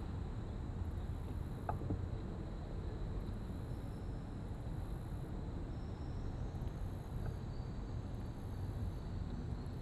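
Insects buzzing from the riverbank in stretches that come and go, high and thin, over a steady low rumble of wind and water at the microphone. A faint knock about two seconds in.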